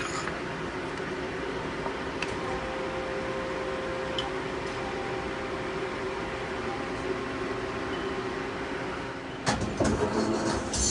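Mori Seiki SL-25B CNC turning center running with a steady machine hum. About nine and a half seconds in, the 12-station turret indexes with a quick clatter of clicks and clunks.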